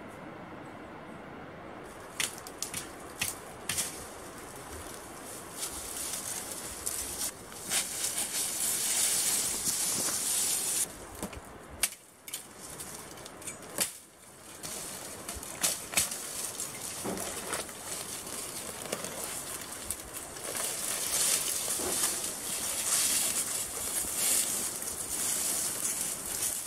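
Dry branches and fallen leaves rustling and crackling in swells as brush is pulled and dragged, with scattered sharp snaps of twigs.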